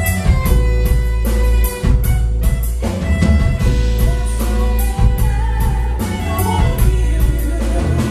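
Live band playing an instrumental passage: drum kit keeping a steady beat under electric guitar, keyboard and saxophone.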